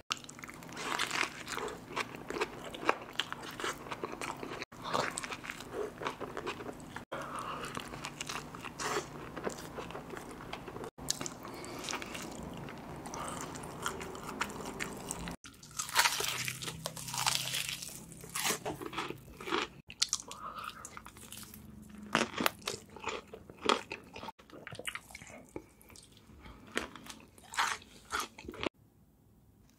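Close-miked eating: crunchy bites into burgers and fried food, with chewing in between. The sound breaks off abruptly several times and starts again.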